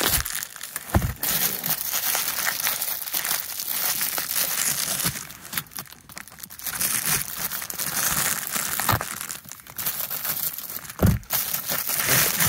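Clear plastic wrapping crinkling and crackling as it is pulled and torn off a package by hand, in fits and starts, with a few dull knocks.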